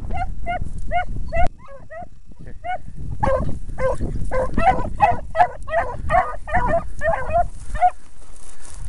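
Beagle hounds giving tongue in short, repeated bays, about two or three a second. One voice at first; from about three seconds in, a second hound joins and the calls overlap, as a brace does when running a rabbit's scent line. A sharp knock about a second and a half in.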